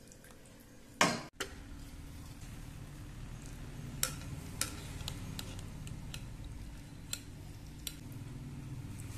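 Wooden spatula stirring thick chili paste in a wok, ending in one loud scrape about a second in. Then a wire mesh strainer scoops soaked raw crackers out of water in a glass bowl, with several sharp clinks of metal on glass over a steady low hum.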